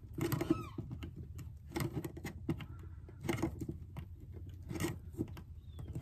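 Irregular metallic clicks and scrapes as a scissor blade is worked around the rim of a stuck screw cap on a metal can of PVC cement, trying to pry the cap loose.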